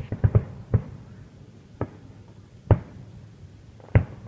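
Aerial fireworks shells bursting, a string of sharp booms: a quick run of four in the first second, then single bangs about a second apart.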